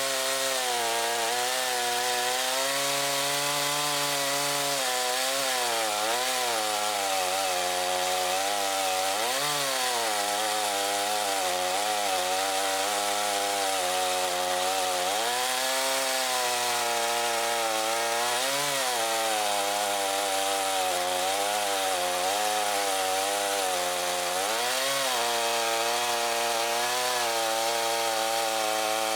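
Makita DCS5121 50 cc two-stroke gasoline chainsaw running steadily and cutting wood. Its engine pitch rises briefly and drops back every few seconds as it works through the cut.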